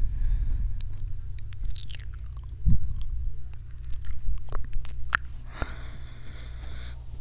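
Close-up ASMR mouth sounds into a binaural microphone: a run of short wet clicks and smacks with a low thump about two and a half seconds in, then a breathy hiss lasting about a second and a half near the end.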